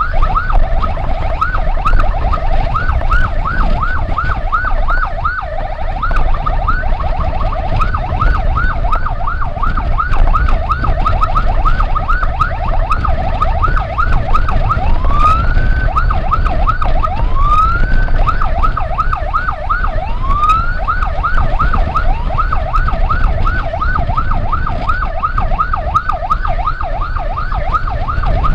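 Emergency vehicle siren sounding a fast warbling chirp, about three or four a second, with three slower rising wails about halfway through. A steady low road and wind rumble runs underneath.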